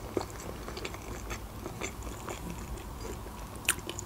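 Close-miked chewing of soft sweets: small wet mouth clicks and smacks, with one sharper click near the end.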